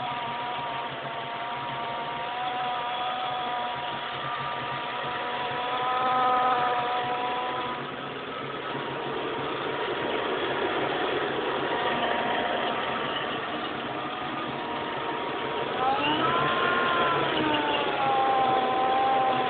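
Supercharged 2003 Mustang GT's engine running with a steady humming whine. Near the end the revs rise briefly, and the whine climbs in pitch and falls back. The owner suspects that the hum comes from a pulley with a bad bearing, not from the Kenne Bell blower, and hears it loudest by the alternator.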